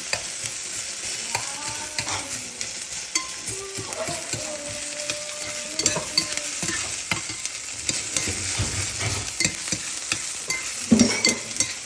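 Chopped onion frying in olive oil in a hot pan, a steady sizzle, with a utensil stirring and clicking against the pan. A few louder knocks come near the end.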